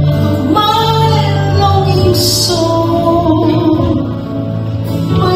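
Live worship band playing a praise song: a woman sings the melody into a microphone, backed by guitars, bass and keyboard with sustained low bass notes.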